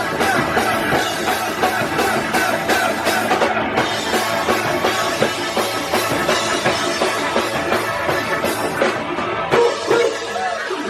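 Live punk rock band playing loud, with drum kit and electric guitars.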